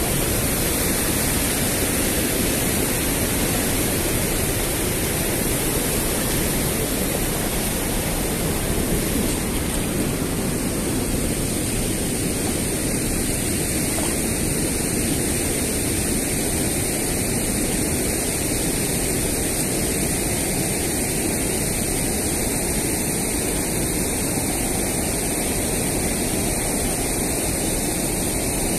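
Steady rushing of river water spilling over a low concrete weir, an even noise that holds at one level throughout.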